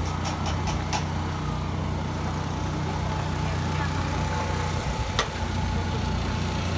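Steady low hum of an idling engine from the parked food trucks, with a quick run of sharp clicks at the start and one more sharp click about five seconds in.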